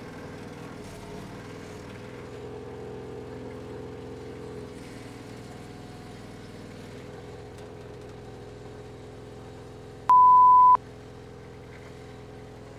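Bobcat 743 skid-steer loader's diesel engine running steadily. About ten seconds in, a single loud, steady beep lasting under a second starts and stops abruptly, louder than the engine.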